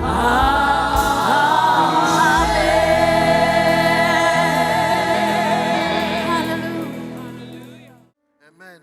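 Live gospel worship song: voices singing over a band, ending on a long held note that fades out about eight seconds in.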